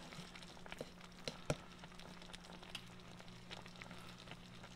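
A few faint, light taps and scrapes of a wooden spatula on a plastic tub and on mashed potatoes as they are scraped out and spread, the clearest tap about one and a half seconds in, over a low steady hum.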